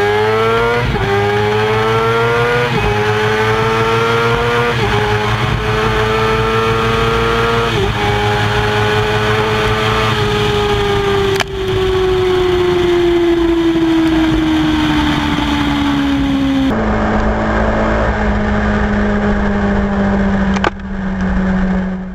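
Sport motorcycle engine accelerating hard through the gears: its pitch climbs and drops back at each of about four upshifts, then falls slowly as the throttle eases off. After a cut, the engine holds a steady note at cruising speed.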